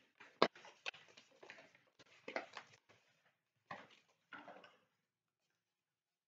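Construction paper rustling as it is folded and handled, with scissors snipping through paper: faint short clicks and rustles in small clusters, the sharpest about half a second in, stopping about five seconds in.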